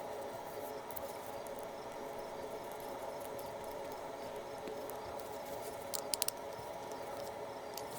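Small parts of a folding knife handled during reassembly: faint handling noise and three quick sharp clicks about six seconds in, over a steady low background hum.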